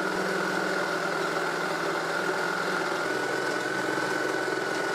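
A power tool's electric motor running steadily at an even speed, with a constant high whine over a lower hum.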